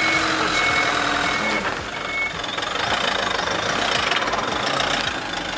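Mitsubishi Fuso Canter dump truck's 4P10 four-cylinder diesel running as the truck manoeuvres, with its reversing alarm beeping in short, evenly spaced tones that stop a little over two seconds in.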